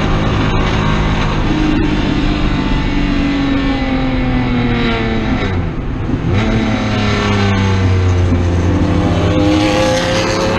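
Race car engine at high revs, heard from inside the cockpit. About halfway through, the note sags and dips briefly, then picks up again and pulls steadily.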